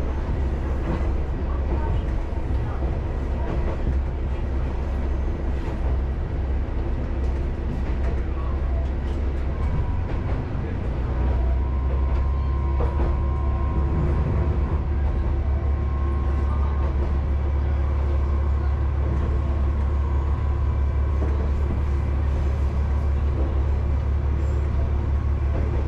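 Isumi Railway diesel railcar running along the line: a low engine drone with wheel-on-rail noise. The low drone grows louder about eleven seconds in.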